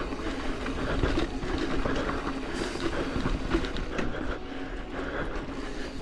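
Mountain bike rolling fast over rough singletrack: tyre noise on dirt and roots with a continuous clatter of chain and frame rattling over the bumps.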